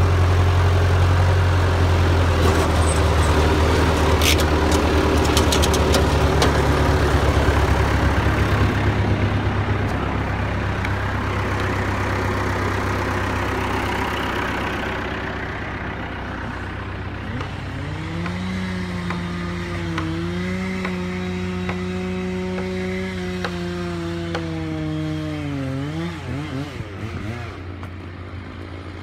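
A skidder's diesel engine runs loud and close, then fades as it falls behind. About two-thirds of the way through, a chainsaw revs up and holds a steady high-speed note for several seconds, then drops back near the end.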